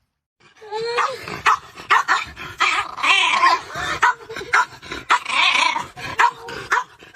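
A dog barking and yipping, with whines mixed in, in a quick irregular string of calls that starts about half a second in.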